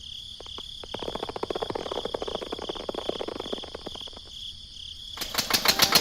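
Crickets chirping in a steady high pulse, with a run of fast clicking for about three seconds in the middle. A louder, rapid rhythmic sound starts near the end.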